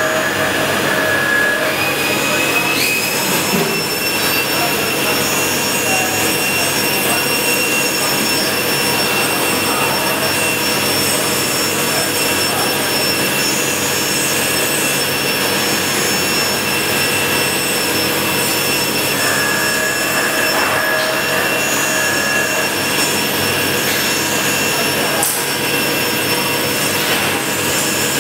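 CNC milling machine cutting an injection-mold plate with an end mill under flood coolant: a steady, loud machine hiss with several high whining tones from the spindle and cutter, one more tone joining a few seconds in.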